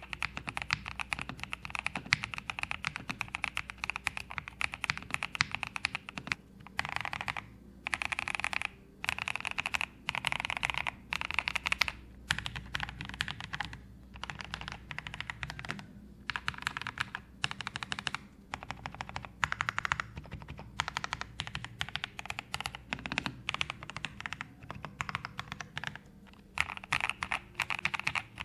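Continuous fast typing on a Pressplay Apollo61 v2 mechanical keyboard with lubed Gateron Brown tactile switches: rapid key clicks, with brief pauses every few seconds.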